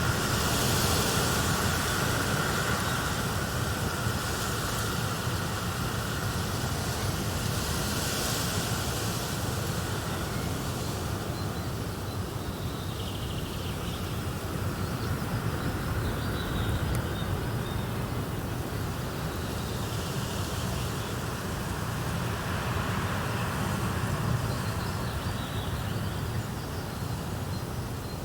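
Wind blowing in slow gusts with dry leaves rustling, rising in swells about 1 second and 8 seconds in.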